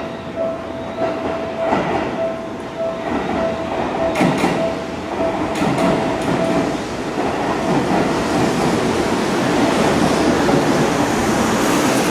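Seibu 4000-series electric train pulling in alongside the platform and slowing, the running noise of its wheels and cars growing louder as the carriages pass close by. A repeating beep sounds in the background until about seven seconds in.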